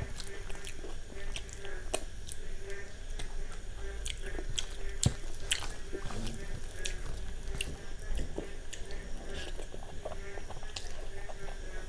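Close-miked wet chewing and smacking of a mouthful of soft khichuri (rice and lentils), with many short, sharp mouth clicks scattered throughout. Fingers squish the soft rice and lentils as they mix it on a steel plate.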